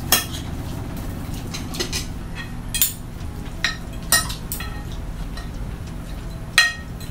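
Metal spoons and forks clinking and scraping against ceramic plates as two people eat, with about six sharp clinks, the loudest just after the start and near the end, over a steady low hum.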